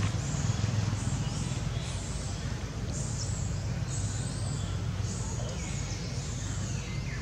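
A motor engine idling steadily with a low hum. Short, high chirping calls come over it about once a second.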